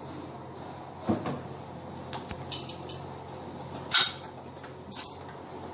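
Plastic knocks and bumps as an RO water purifier's casing is set back onto its wall-mounted stand, with the loudest knock about four seconds in.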